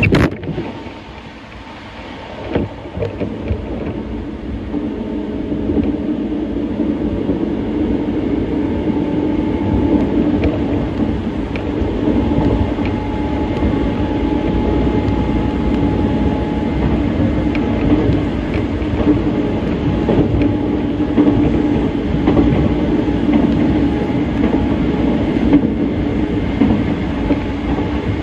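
Hanshin electric commuter train running, heard from inside the carriage: a steady rumble of wheels on the rails with a low hum. It grows louder over the first few seconds and then holds steady.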